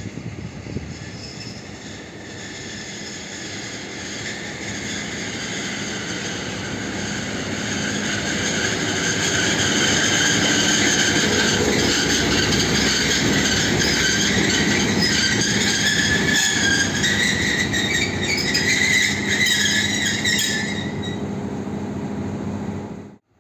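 SM42 diesel shunting locomotive running light past at low speed: its diesel engine runs steadily under high-pitched metallic squealing from the running gear. The sound grows louder as the locomotive draws level and is loudest as it passes; the squeal drifts up and stops shortly before the end.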